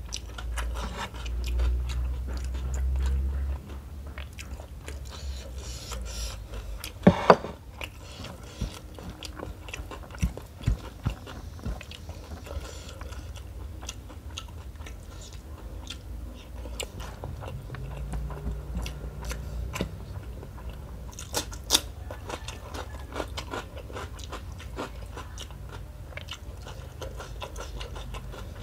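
Close-miked chewing and wet mouth sounds of a person eating rice and curried fish by hand, with many small clicks and smacks. A few sharper, louder clicks stand out, the loudest about seven seconds in and another about twenty-one seconds in.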